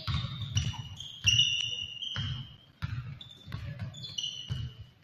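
A basketball bouncing on a gym floor in repeated thumps, about two a second, with many short, high sneaker squeaks of varying pitch on the hardwood, in an echoing hall.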